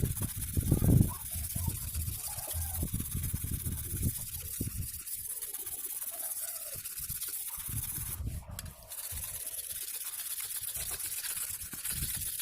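Sickle blade being stroked repeatedly over a fine whetstone, a rasping scrape with each pass, the strokes loudest in the first second.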